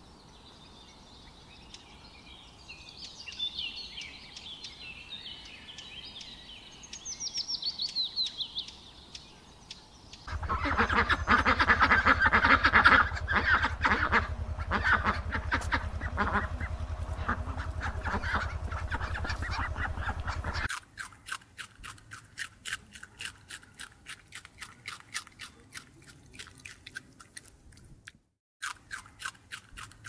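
Animal and bird calls in several cut-together segments. High chirping calls come first. About ten seconds in, a louder stretch of dense, rapid calling starts over a low hum. From about twenty seconds in there is a run of fast, sharp clicks.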